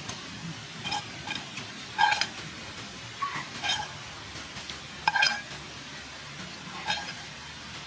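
Utensil clinking against cookware, about seven separate strikes, each with a short ring. The loudest come about two and five seconds in.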